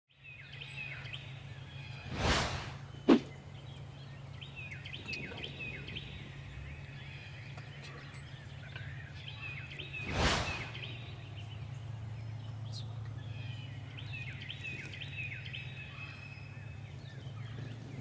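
Outdoor background with small birds chirping in short repeated phrases, broken by two whoosh sound effects, one about two seconds in and one about ten seconds in as a title graphic comes up, and one sharp thud just after the first whoosh, the loudest sound here.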